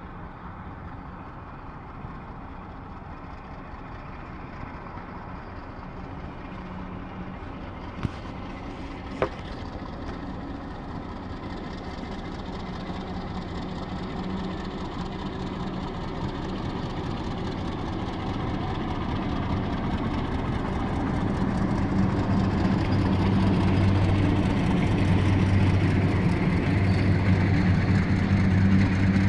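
Diesel locomotive of a passenger train approaching and passing, its engine's low hum and the train's rumble growing steadily louder. Two sharp clicks about eight and nine seconds in.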